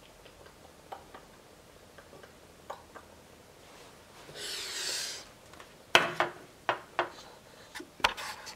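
Camera being handled up close: several sharp knocks and clunks in the last few seconds, the first the loudest, ending abruptly. Before them, a quiet room with a few faint clicks and a soft rush of noise about halfway through.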